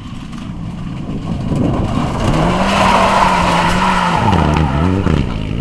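Mitsubishi Lancer Evolution rally car coming through at full throttle, its turbocharged four-cylinder growing louder and then holding high revs. Near the end the revs drop and climb again twice through gear changes, over the rushing hiss of tyres sliding on loose gravel.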